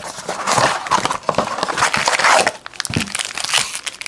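Trading-card packaging from a 2015 Bowman baseball blaster box being torn open and handled: crinkling and tearing of wrapper and pack material. It comes in several loud spells with small crackles.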